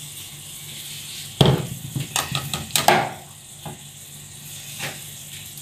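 Lidded glass jars of sauce being set down upside down on a granite countertop: a heavy knock about a second and a half in, then a run of clinks and knocks, and a few lighter taps later, over a steady faint hiss.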